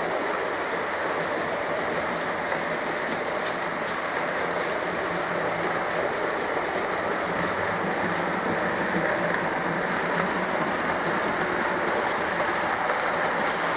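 Model passenger train running past on model railway track: a steady rolling noise with no distinct beat.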